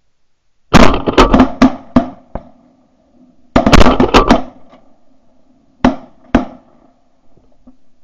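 Shotguns fired in volleys by several hunters: a rapid string of about half a dozen shots about a second in, another burst of shots around three and a half seconds in, then two single shots near six seconds.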